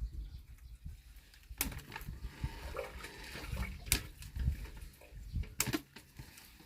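Water splashing and spilling as the last section of riser pipe and the submersible pump are pulled up out of the bore well, with three sharp knocks spaced about two seconds apart.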